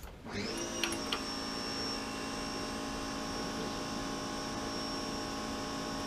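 An electric motor starts, spinning up quickly in pitch, then runs with a steady hum; two light clicks come about a second in.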